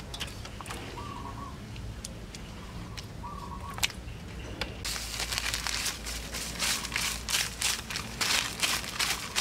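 Salt pouring from a plastic bag onto a steel bowl of gutted eels: a dense, rapid pattering and crackle starting about five seconds in. Before that there are only light clicks of the eels being handled, and a short bird chirp sounds twice.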